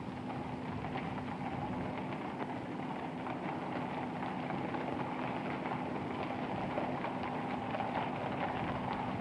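Horses walking, their hooves making a dense run of irregular clip-clop steps over a steady background hiss with a faint low hum.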